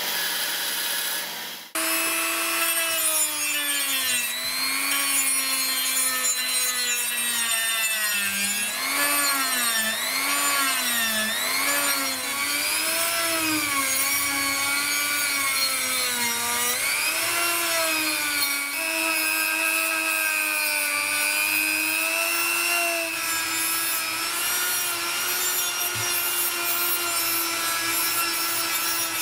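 Briefly a belt grinder, then a handheld rotary tool with a small sanding drum grinding the serrations of a rusty steel saw blade. The motor's whine keeps dipping and rising in pitch as the drum is pressed onto the steel and eased off.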